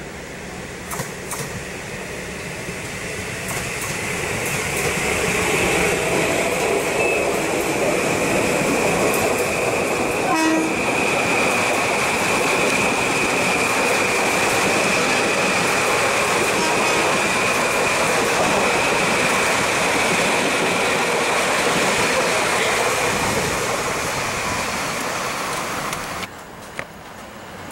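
Metro-North M8 electric multiple-unit train passing close by: the rush of wheels and running gear builds over the first few seconds and holds, with a steady high whine through most of the pass. The sound drops off sharply near the end.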